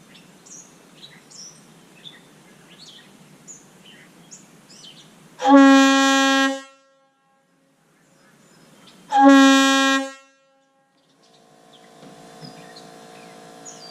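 Leslie RS air-horn power chamber with a number 25 bell, freshly machined, blowing two short steady blasts, each about a second long, a few seconds apart. Birds chirp faintly before the first blast.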